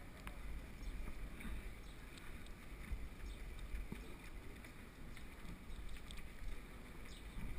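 Mountain bike rolling downhill on a rough lane: a low wind rumble on the microphone with tyre noise and scattered clicks and rattles from the bike.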